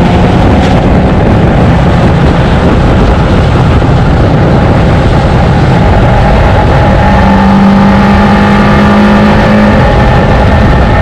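Mazda 26B four-rotor rotary engine in a Holden FJ running hard on a race track, loud and steady.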